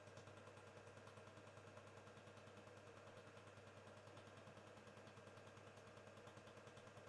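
Faint, rapid, even ticking of a LaserStar 7601-MFX fiber laser welder firing about four pulses a second as it seam-welds stainless steel, over a steady low hum.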